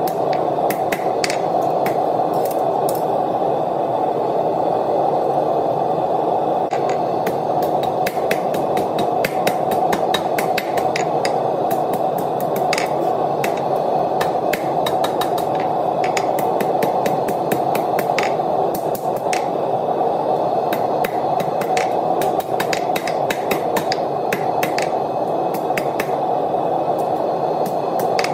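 Hand hammer striking a red-hot 5/8-inch steel round bar on an anvil: irregular runs of sharp blows, a few a second with short pauses, over a steady rushing noise.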